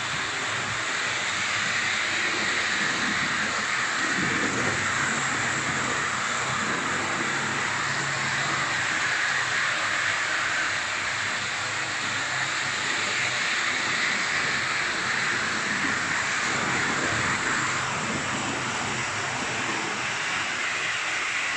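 Two OO gauge model locomotives running steadily around the track: an even whirring of motors and metal wheels on the rails, with no stalling or change in speed.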